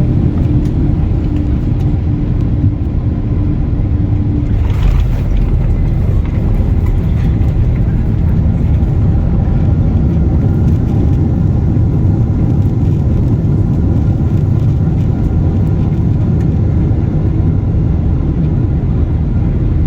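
Steady low rumble of a Boeing 767-400ER's engines and airflow heard from inside the passenger cabin. A steady hum stops about four seconds in, and a brief hiss follows about a second later.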